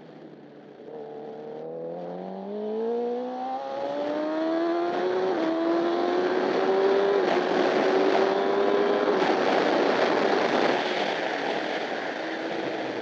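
Honda CBR1000RR superbike's inline-four engine heard onboard, accelerating hard: the revs climb quickly, then keep rising more slowly after a quick gear change about five seconds in. Wind noise grows louder as the speed builds and eases slightly near the end.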